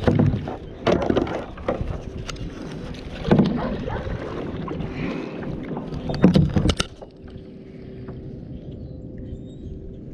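Kayak paddle strokes in the water, with wind rumbling on the microphone: a few loud, uneven surges in the first seven seconds, then quieter.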